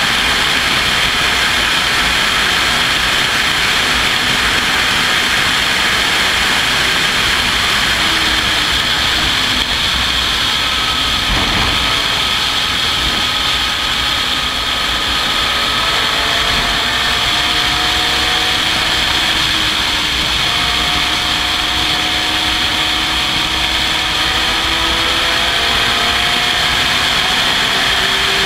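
Open-cockpit racing car at speed, heard from its onboard camera: a loud, steady rush of wind with the engine note underneath slowly climbing in pitch as the car accelerates. A short thud about twelve seconds in.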